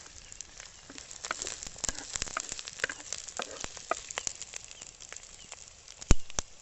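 Curry leaves crackling and spluttering in hot tempering oil with mustard seeds, dried chillies and crushed shallots: many sharp pops over a frying sizzle, getting denser about a second in. A single sharp knock near the end.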